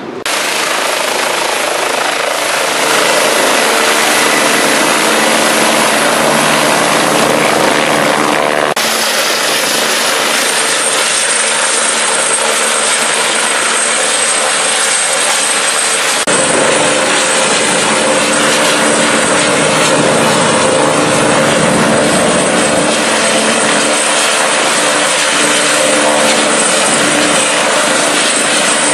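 Turbine helicopter running close by on the ground with its rotor turning: a loud, steady rotor thrum with a thin high whine over it. The sound shifts abruptly about 9 and 16 seconds in.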